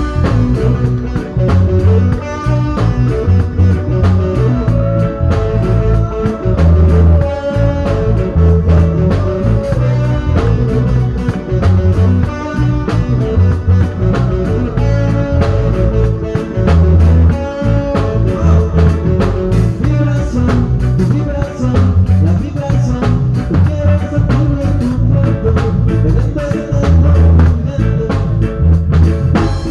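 Band playing a reggae song, with a heavy bass line repeating under a steady drum beat and other instruments.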